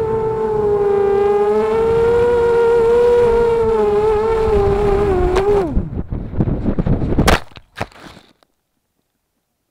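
Mini FPV quadcopter's electric motors whining steadily over low wind rumble. About six seconds in the pitch drops away as the motors spin down, followed by a few sharp knocks before the sound cuts off.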